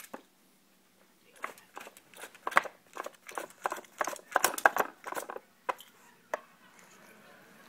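Plastic drawers of a Dog Casino treat puzzle clattering and knocking as a dog grabs and pulls them open with its mouth. The irregular clicks and knocks begin about a second and a half in and stop about six and a half seconds in.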